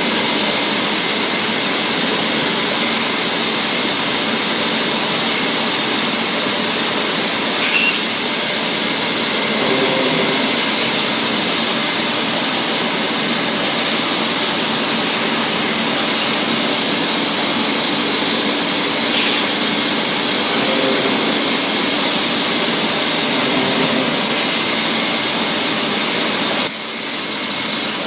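Weeke BP CNC machining centre running: a steady rushing noise with a thin high whine from the spindle and extraction. The level drops a little near the end.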